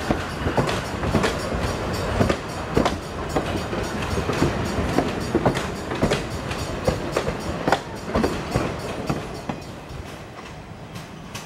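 Passenger coaches and a caboose rolling past at close range, their wheels clacking and knocking irregularly over the rail joints over a steady rumble. The sound fades near the end as the caboose moves off down the line.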